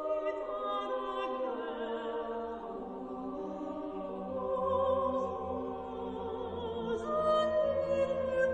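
Slow choral music: several voices holding long notes together, moving to new chords every second or two, with a low sustained note underneath from about halfway through.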